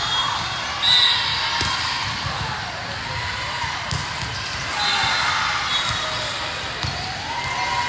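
Volleyball rally on an indoor court: sharp smacks of the ball being hit, the loudest about a second in, with sneakers squeaking on the court floor and voices of players and spectators echoing in a large sports hall.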